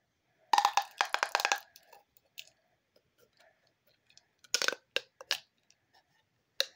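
Plastic pop tube fidget toy being stretched and bent, giving a quick run of about ten ringing pops lasting about a second, then a few single pops later on.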